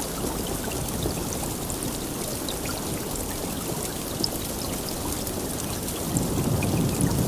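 Steady heavy rain falling, with scattered individual drop ticks. About six seconds in, a low rumble of thunder starts to build underneath.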